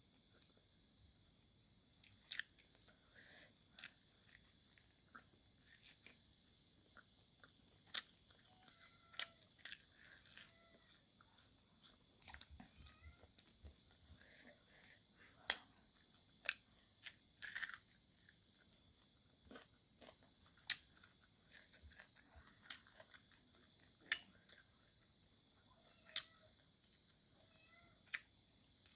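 Crickets chirring steadily and faintly in the background. Over them come short, sharp mouth clicks and smacks of eating every second or two, louder than the chirring.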